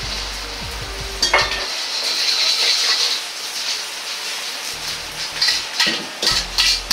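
Beaten eggs sizzling in hot oil in a wok, a steady hiss. About a second in there is one sharp clink, and near the end a metal spatula scrapes and stirs the eggs against the wok in several quick strokes.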